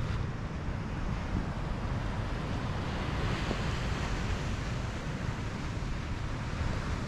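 Wind buffeting the microphone over the wash of ocean surf on a rocky shoreline, a steady rumble and hiss with a swell of louder hiss about three seconds in.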